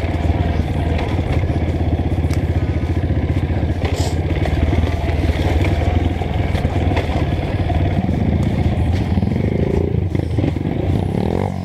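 Honda CRF 230F's single-cylinder four-stroke engine running under way on a dirt trail, its note steady at first and shifting in pitch after about eight seconds, with some clatter from the bike over the rough ground.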